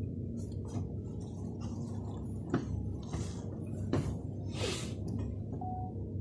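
Steady low indoor background rumble, with two sharp clicks about two and a half and four seconds in, and a brief hiss just after the second.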